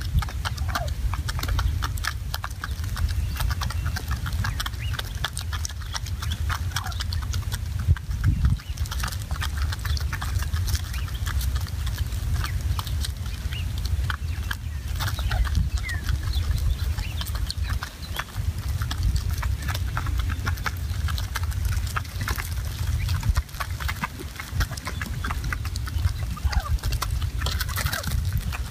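A flock of wild turkeys calling with short clucks and purrs, over many small scattered clicks and a steady low rumble.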